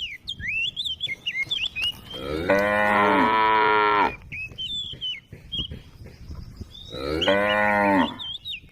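Cow mooing twice: a long moo of over a second about two and a half seconds in, and a shorter one near the end.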